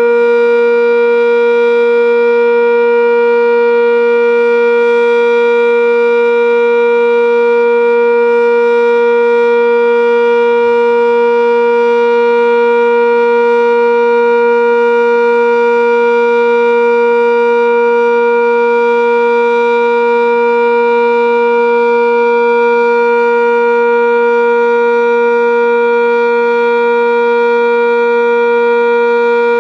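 Sentry 10V3X outdoor warning siren sounding its steady alert signal: one loud, unwavering tone that holds the same pitch throughout.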